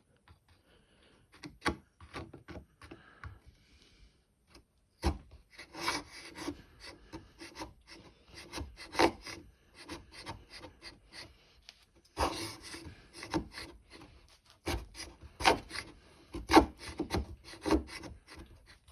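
Small chisel blade of a Victorinox SwissTool multi-tool scraping and gouging into wood in irregular strokes. There are a few light clicks at first, and the scraping starts about five seconds in.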